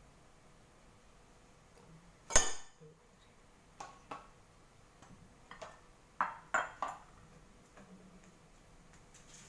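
Kitchenware clattering: one loud sharp clack about two seconds in, followed by a string of lighter clinks and knocks, three of them in quick succession a little past the middle.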